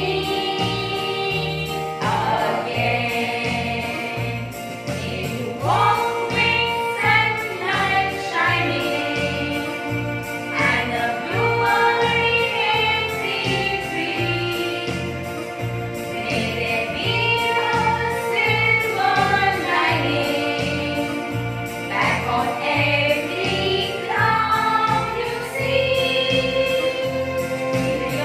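A small group of women singing a hymn together, accompanied by a Yamaha electronic keyboard playing with a steady beat.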